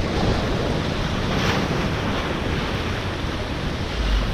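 Ocean surf washing against a rocky jetty, with a wave swelling about a second and a half in, and wind buffeting the microphone with a low rumble near the end.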